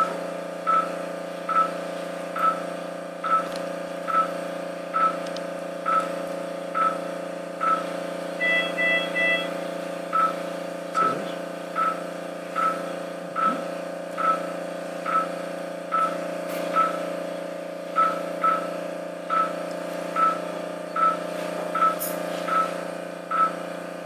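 Operating-room patient monitor (pulse oximeter) beeping steadily, a little more than once a second, once per heartbeat, over a steady hum of equipment. About nine seconds in, a brief three-tone chime sounds and the beeps pause for a moment.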